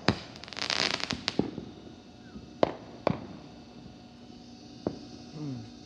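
Fireworks going off: a sharp bang, then about a second of dense crackling, followed by four single bangs spaced a second or so apart.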